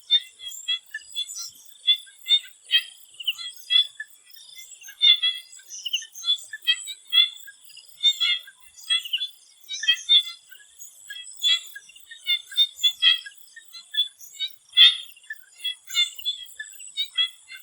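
A chorus of swamp frogs calling: many short chirping calls overlapping at irregular intervals, with a steady thin high whine behind them.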